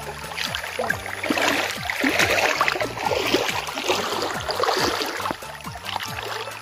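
Water splashing and sloshing as legs wade through a shallow stream: a continuous churning splash, loudest about two seconds in.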